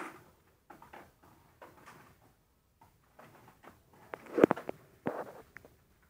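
Scattered light knocks and clicks of handling, with a sharper cluster of clicks about four and a half seconds in and another just after five seconds.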